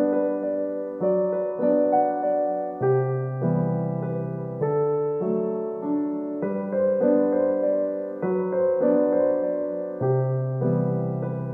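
Soft background music on a piano-like keyboard: notes and chords struck at an unhurried pace, each fading before the next, over slowly changing bass notes.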